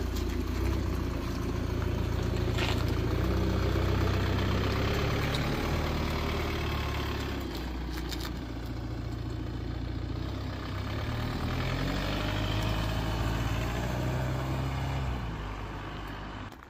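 Car engine and road noise while driving, the engine note rising and falling as the speed changes. It cuts off suddenly near the end.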